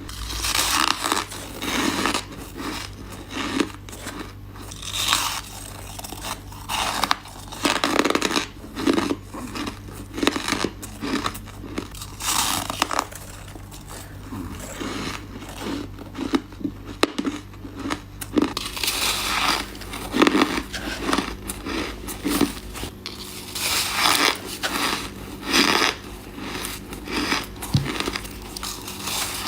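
Ice being bitten and chewed close to the microphone: repeated crunching and cracking bites.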